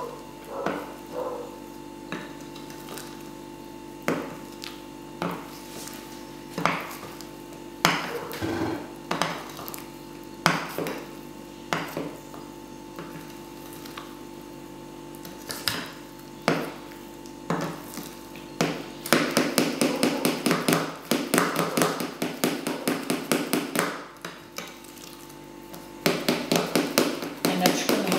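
A spoon stirring cake batter in a ceramic bowl, knocking against the bowl's side every second or so as flour is folded in. About two-thirds of the way through it turns into fast beating, a quick run of many clicks a second, with a short pause before it picks up again near the end.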